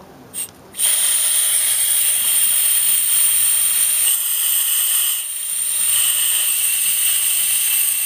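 Pressurised nitrogen hissing out of a heat pump's refrigerant line through a valve core remover's opened ball valve. A short spurt comes first, then a loud, steady, high-pitched hiss from about a second in that eases briefly around the middle before carrying on.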